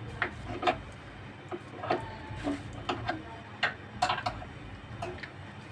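Desi ghee heating in a non-stick pan, sputtering and popping now and then: a dozen or so short, sharp, irregular pops and ticks as the melting fat meets leftover water in the pan.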